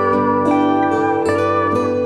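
Background instrumental music: a plucked string melody over sustained low notes, with notes changing every fraction of a second.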